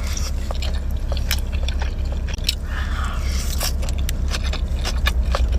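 Close-miked chewing with wet mouth clicks and lip-smacking, many short sharp clicks scattered through, over a steady low rumble.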